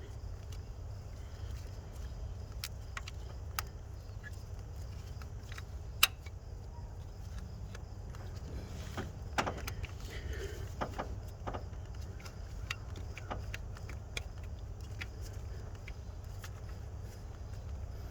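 Scattered light clicks and taps of small parts and tools being handled while working the camshaft position sensor loose from its mount, with one sharp click about six seconds in, over a steady low hum.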